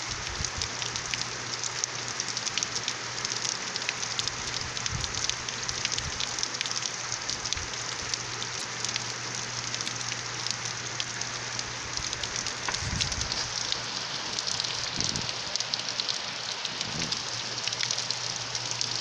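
Rain falling steadily, with many individual drops ticking sharply against the hiss of the downpour.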